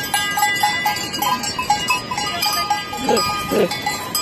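Bells worn by a herd of goats clinking and clanking irregularly as the goats jostle, with two short goat bleats about three seconds in.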